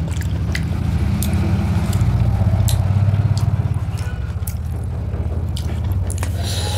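A low engine-like rumble, swelling about two to three seconds in and then easing off, with scattered small clicks and smacks of eating by hand from metal plates.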